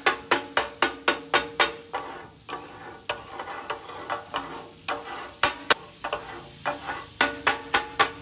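Two metal spatulas beating and chopping chicken on a large flat griddle for chicken katakat: rapid rhythmic clanging, about four strikes a second with a ringing tone. The clanging breaks off about two seconds in for softer scraping and clicks, and picks up again near the end.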